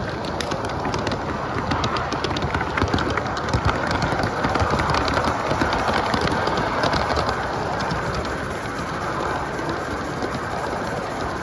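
Large-scale live steam locomotives running past on a garden-railway track: steady steam hiss with a rapid patter of small clicks from the wheels on the rails, loudest a few seconds in as the engines pass closest.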